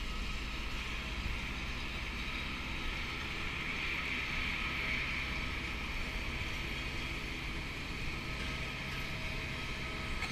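Steady machine hum and whine of airport ground equipment beside a parked turboprop airliner, a few steady tones over a continuous rush that swells slightly in the middle.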